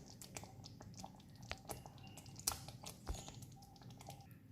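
Chicken pieces being added to thick tomato gravy in a pan: faint, irregular wet squishes and light clicks, with a sharper click about two and a half seconds in.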